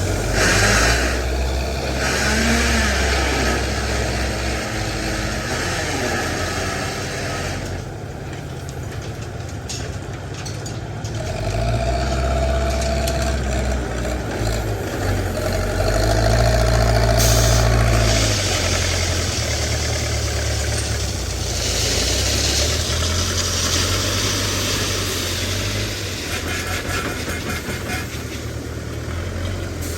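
Backhoe loader's diesel engine running and revving up and down as it works, with a higher whine rising twice and several short bursts of hiss.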